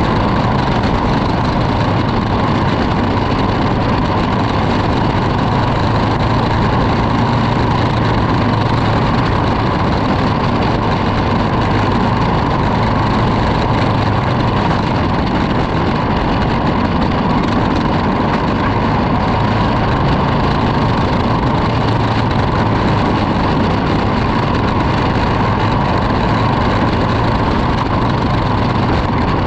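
Racing kart's small engine running steadily, heard from onboard the kart.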